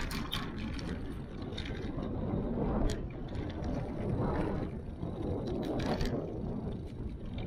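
Wind buffeting the microphone of a bicycle-mounted action camera while riding, a low rumble that swells a few times. A few sharp clicks and rattles from the bicycle come through, one just at the start and others around three and six seconds in.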